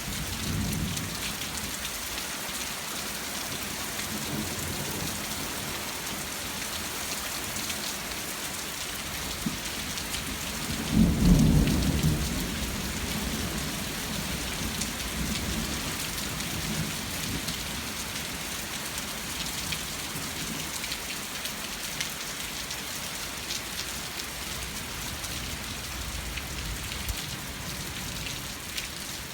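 Thunderstorm: steady heavy rain falling on surfaces, with low rolls of thunder, the loudest a sharp crack and rumble about 11 seconds in.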